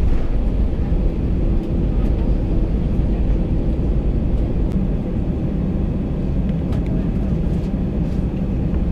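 Steady low rumble of an Airbus A320's engines heard inside the passenger cabin.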